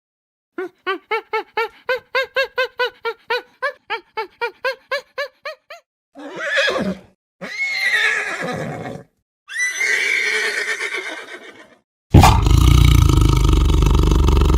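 A sequence of animal calls: a rapid run of about twenty short pitched calls at roughly four a second, then three longer, harsher calls, then a loud, noisy call about twelve seconds in.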